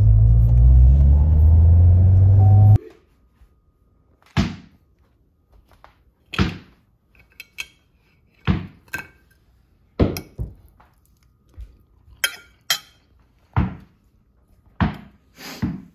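A car's low engine rumble heard inside the cabin, cut off abruptly about three seconds in. Then about ten sharp thuds, one every second or two with some in quick pairs: a tennis ball thrown and bouncing on a wooden floor.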